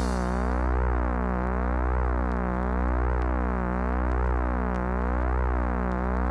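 Sustained electronic synthesizer drone: a held chord over a deep bass tone, with a slowly sweeping, shimmering phaser-like movement running through it and no beat.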